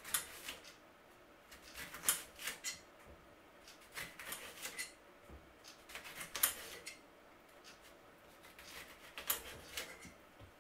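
Kitchen knife slicing a lemon into rounds on a chopping board: a string of sharp taps, one every second or two at an uneven pace, as the blade cuts through and meets the board.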